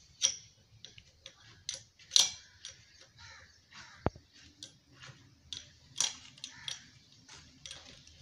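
Open-end spanner working the bolts of a diesel engine's gear housing: irregular light metal clicks and clinks, the loudest about two seconds in and again about six seconds in.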